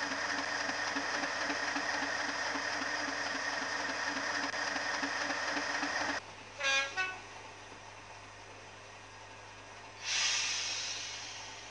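Model diesel locomotive's DCC sound decoder playing a diesel engine running, a steady rumble with a faint regular beat, which cuts off suddenly about six seconds in. Two short horn toots follow, and near the end a brief hiss that fades away.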